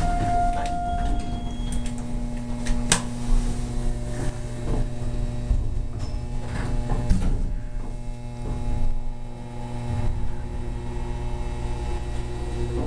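Otis elevator car travelling, heard from inside the cab as a steady low hum with a few fixed tones. There is a sharp click about three seconds in.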